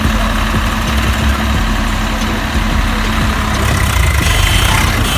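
Tractor engine running steadily with a deep rumble.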